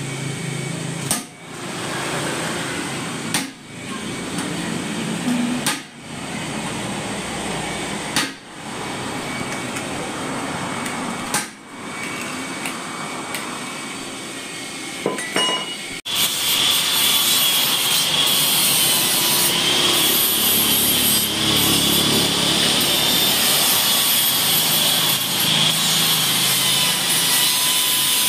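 Metal being worked on a motorcycle muffler pipe: repeated rasping strokes, a break every two to three seconds, then about halfway through a sudden switch to a louder, steady grinding with a high whine.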